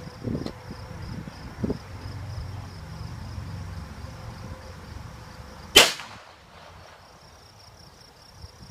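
A single sharp report about six seconds in as a 37mm flare launcher mounted under an AR-15 fires a flare, with a short tail after it. Insects trill steadily in the background.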